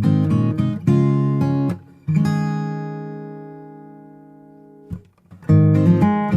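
Background music of acoustic guitar strummed in chords, with one chord left to ring out and fade over about three seconds before the strumming resumes near the end.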